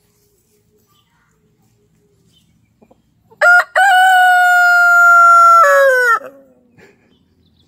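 Rooster crowing once, about three seconds in: a short opening note, then one long held note that drops in pitch as it ends.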